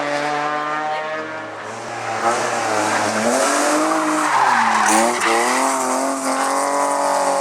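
Race car engine on a hillclimb, its pitch falling off the throttle and climbing again as it accelerates out, with tyre squeal over the middle of the pass.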